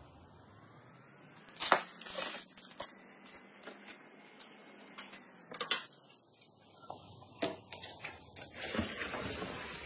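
Tableware and food being handled at a dining table: scattered light clicks and knocks of utensils and bowls, with a couple of sharper taps.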